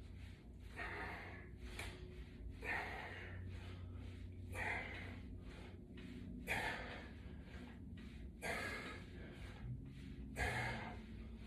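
A person breathing hard with exertion: six forceful breaths, about one every two seconds, over a faint steady low hum.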